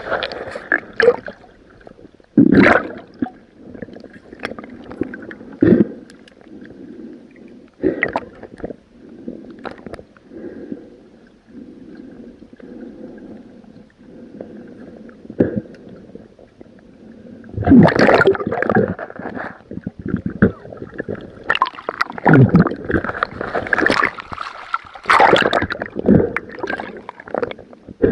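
Water gurgling and splashing in irregular bursts, with louder busy stretches about two-thirds of the way through.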